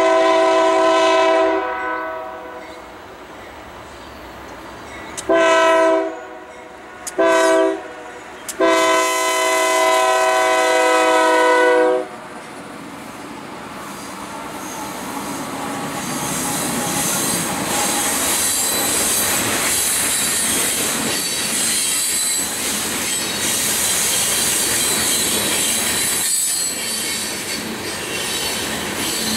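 Union Pacific diesel freight locomotive's horn sounding the grade-crossing signal: long, long, short, then a long blast held about three seconds. The train then rolls past, its freight cars' wheels clattering on the rails with high-pitched wheel squeal that grows louder.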